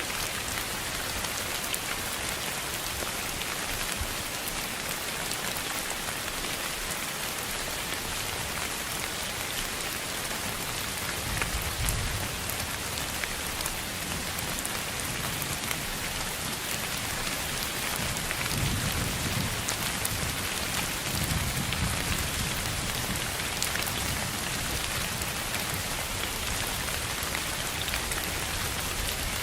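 Steady rain hiss with scattered drop ticks. A low rumble of distant thunder comes about eleven seconds in, and two more come around twenty seconds in.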